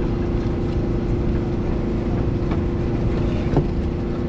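A small engine running steadily with an even, unchanging hum. A brief click comes about three and a half seconds in.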